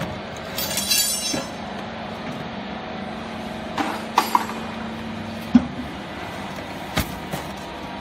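Small vertical cardboard baler ejecting a finished bale. Its hydraulic pump runs with a steady hum, with a metallic rattle about a second in and sharp clanks and knocks as the bale tips out. The hum cuts off with a thump about five and a half seconds in, and one more sharp knock follows.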